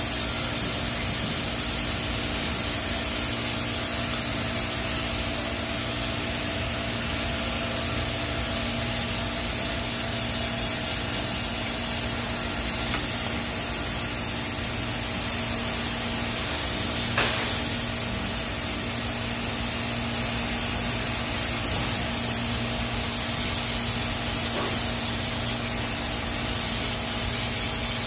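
TIG welding arc laying a root pass on stainless steel pipe, hissing steadily with a constant low hum. Two brief clicks come about halfway through and again a few seconds later.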